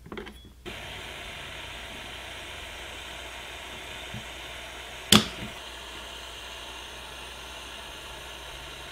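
Steady hiss of a heat-blower soldering tool blowing hot air over a circuit board's IC, starting under a second in. A single sharp click comes about five seconds in.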